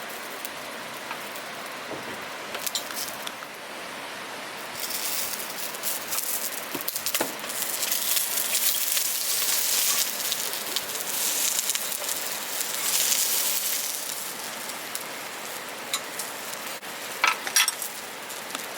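Wild boar sausages sizzling on a grill over a fire, with scattered crackles. The sizzle swells for several seconds in the middle, and a few sharp clicks come near the end.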